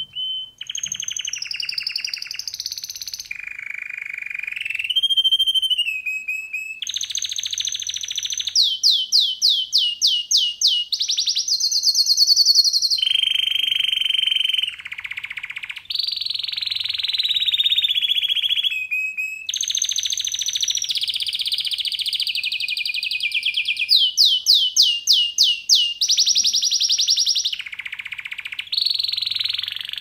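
Domestic canary singing a continuous song of fast rolling trills and repeated notes, the phrase changing every second or two and jumping between higher and lower pitches. Twice, about a third of the way in and again near the end, it sings a louder phrase of quick separate notes.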